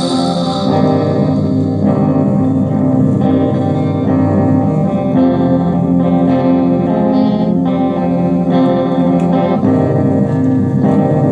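Guitar playing a run of chords in a song, a new chord sounding about once a second.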